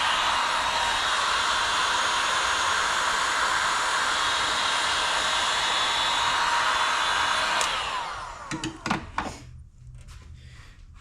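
Heat gun blowing steadily, shrinking heat-shrink tubing over wiring-harness connections. It is switched off about eight seconds in and winds down with a short falling whine, followed by a few clicks of handling.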